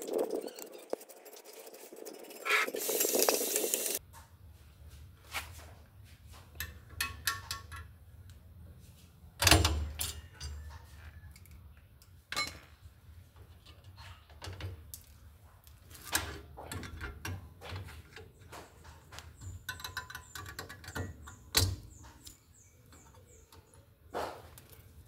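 Hand work on a car's rear drum brake: a hissing scrub for the first few seconds, then scattered clicks, clinks and knocks of metal parts and tools being handled.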